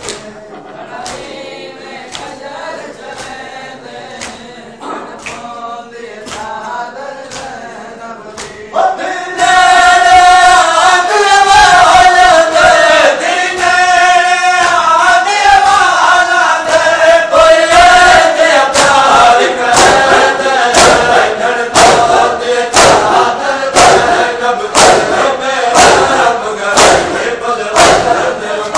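A crowd of men chanting a noha (Shia lament) in unison, with rhythmic chest-beating (matam) slaps about once a second. The singing is softer at first, then jumps much louder about nine seconds in, and the slaps grow sharper toward the end.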